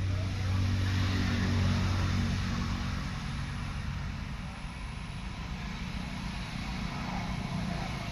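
Low engine drone, loudest in the first two to three seconds and then fading to a weaker hum, over faint outdoor background noise.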